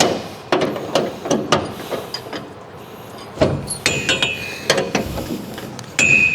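Hand wrench and ratchet working on steel bolts, giving scattered clicks and knocks, with two ringing metal clinks, one about four seconds in and one near the end.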